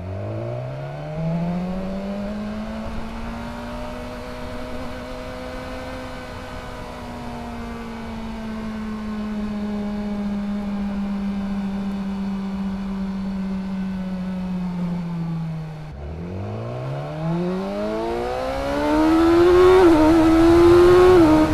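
BMW S 1000 XR inline-four engine through a LeoVince Factory S carbon slip-on exhaust, with its decibel-killer insert still fitted. The revs climb from low to a high, nearly steady note held for about fourteen seconds, then drop away and climb again to a higher, louder, wavering note near the end.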